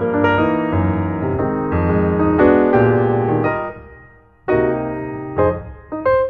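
Background piano music: a melody of struck notes, each ringing and fading, with a short pause about four seconds in before the playing resumes.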